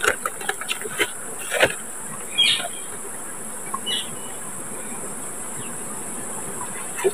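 Steady high-pitched drone of insects, with a few sharp clicks in the first two seconds and a couple of short chirps a little later.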